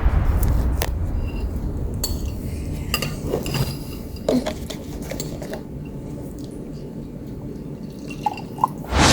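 Cutlery clinking and tapping against bowls and dishes in a few scattered clinks, over a low rumble that fades away over the first few seconds.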